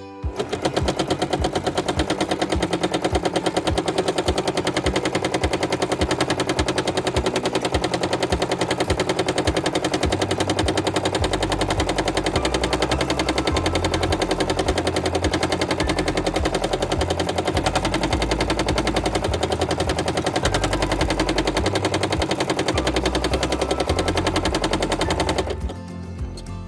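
Domestic sewing machine stitching at speed with a hopping foot for free-motion quilting: a rapid, even clatter of needle and foot. It stops about a second before the end.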